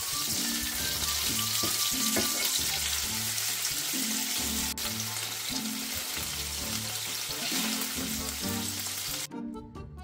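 Beef strips sizzling in hot oil in a frying pan while a wooden spatula stirs them. The sizzle cuts off suddenly near the end.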